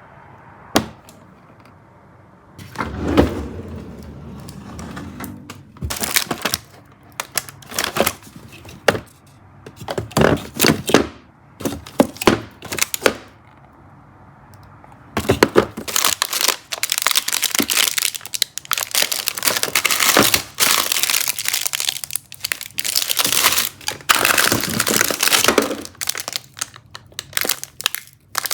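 Plastic packaging crinkling and crackling as it is handled, in short separate bursts at first, then crinkling almost without a break through the second half.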